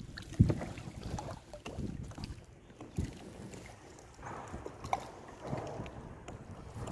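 Water splashing and lapping against the side of a kayak, with a few dull knocks; the loudest knock is about half a second in, and others come near three and five seconds.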